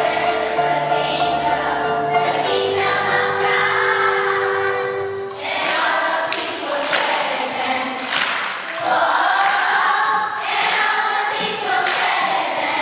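Children's choir singing together, long held notes in the first few seconds giving way to shorter, moving phrases.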